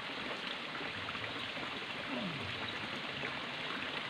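Steady rushing background noise with no paddle or ball hits, and a brief low falling tone about two seconds in.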